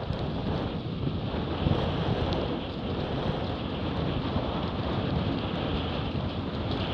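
Wind buffeting the microphone, with water rushing and spraying past the hulls of a Hobie 20 catamaran sailing fast at about 14 knots. It is a steady, rough rush of noise, heaviest in the low end.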